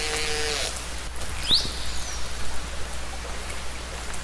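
Underwater recording of killer whales between calls: a held call ends a moment in, then steady hiss with faint clicks. A short rising whistle comes about a second and a half in.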